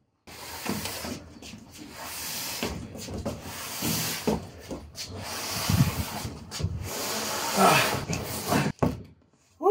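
A large cardboard box for a 65-inch TV being dragged and slid across wooden decking, a long scraping rub with a few knocks, stopping shortly before the end.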